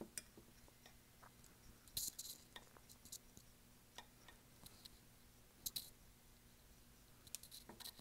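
Faint scattered clicks and taps of a paintbrush being scrubbed and knocked against the inside of a rinse-water jar to wash the dark paint out. The clearest knocks fall about two seconds in and just before six seconds.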